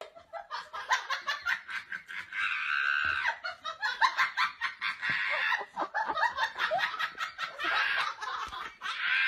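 A person laughing in several bouts.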